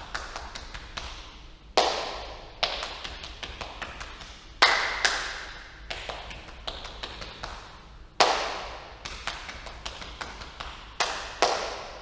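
Body percussion: hand slaps on the thighs and hand claps beating out a repeating rhythm, loud accented hits every few seconds with lighter quick taps between, each hit echoing in the large room.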